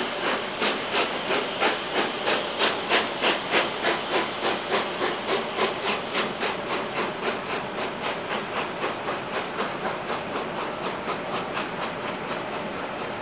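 Exhaust of the Peppercorn A1 steam locomotive 60163 Tornado, chuffing in an even beat of about three a second. The beats quicken slightly and fade as the locomotive pulls away.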